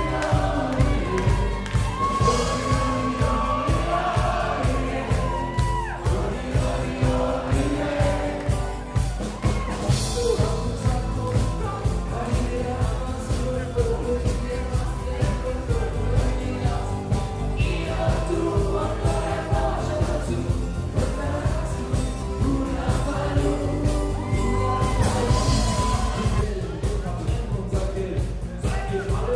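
Live dance band playing a song with a sung vocal over a steady drum beat, picked up by a phone on the stage, so the sound is thin and rough.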